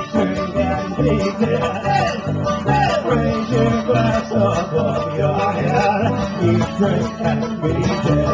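Live string band playing an instrumental passage: strummed acoustic guitar and banjo over an electric bass line pulsing about twice a second, with a wavering lead melody on top.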